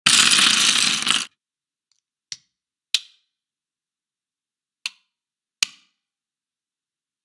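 A heap of plastic LEGO bricks spilling out onto a wooden tabletop, a dense clatter lasting just over a second. It is followed by four sharp clicks of pieces being snapped together.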